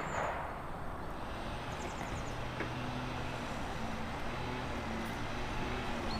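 Steady outdoor background noise with a faint engine hum from distant traffic, which grows a little in the middle, and a few faint high bird chirps.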